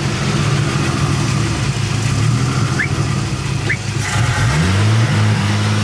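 1975 Chevrolet Opala's engine running as the car drives up, rising in pitch a little past four seconds in as it revs, then holding steady.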